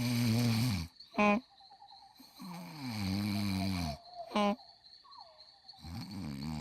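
Cartoon night-time sound effects: a low snore rising and falling three times, with short croaking calls in between and a faint steady high chirp of insects.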